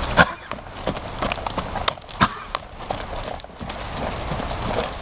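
Hoofbeats of a horse trotting on arena footing: an uneven run of thuds and knocks, with a louder knock near the start and another about two seconds in.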